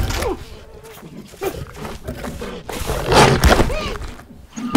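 Animated cheetah cub making short squeaky calls that rise and fall in pitch, mixed with small growls, and a louder burst of scuffling noise about three seconds in.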